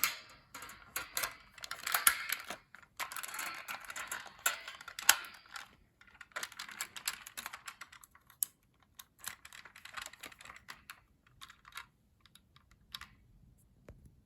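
Plastic clicking, rattling and scraping of a vintage Kenner M.A.S.K. Switchblade toy as its spring-loaded parts are worked by hand. The clicks are dense for the first six seconds, then thin out and stop shortly before the end.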